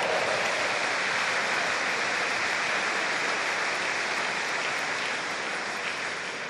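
Spectators in a sports hall applauding a just-won table tennis point. The applause holds steady and eases off near the end.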